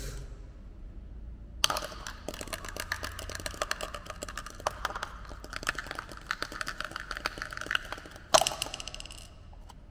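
Plastic dice rattling inside a small plastic flower pot, shaken steadily for about six seconds, then thrown out onto a hard countertop with one sharp clatter near the end.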